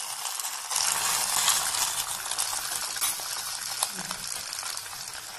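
Small fish and tamarind-leaf mixture sizzling in coconut oil under a banana leaf in a small uruli, a steady hiss with fine crackles that gets louder about a second in.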